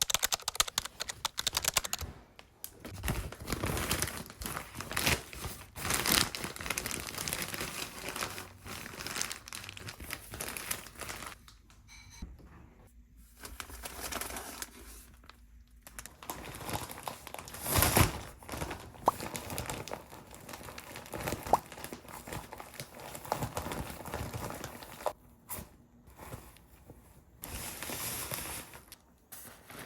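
Close-up crinkling and rustling of something being handled, with scattered sharp clicks and taps, pausing briefly a couple of times and loudest about two-thirds of the way through.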